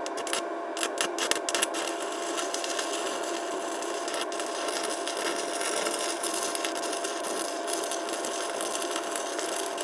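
Stick (MMA) welding arc from a Keygree Flux-155 inverter welder set to 90 amps, a steady crackling hiss with sharper crackles in the first second or two. The machine delivers barely more than 80 amps at this setting, yet the arc runs more lively than at lower current. A thin steady tone runs under the arc.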